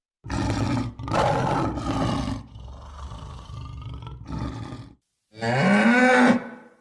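A big cat roaring in several bouts: two loud roars in the first couple of seconds, a quieter rumbling stretch, then a drawn-out call that rises and falls in pitch near the end.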